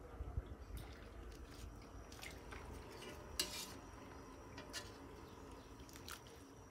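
A ladle stirring a pot of broth, clinking and scraping now and then against the aluminium pot: a few light, scattered clinks.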